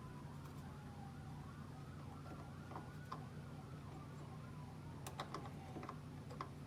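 Distant siren wailing faintly, its pitch slowly rising and falling, over a steady low hum, with a few light clicks near the end.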